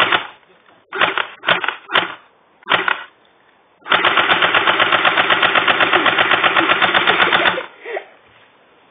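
BB gun firing on full automatic: a few short bursts, then one long burst of about three and a half seconds at roughly eleven shots a second.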